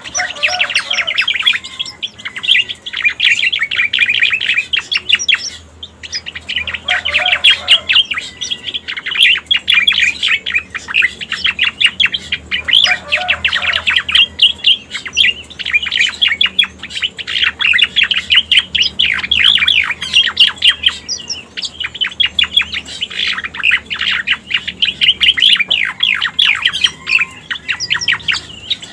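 Recorded song of the cica koreng (striated grassbird) played as a lure call: long phrases of rapid, tumbling chattering notes, broken by brief pauses, with an occasional short pair of lower notes.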